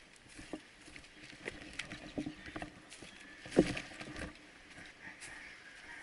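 Footsteps and rustling through dry undergrowth: irregular crackles and snaps, with one sharper knock about three and a half seconds in.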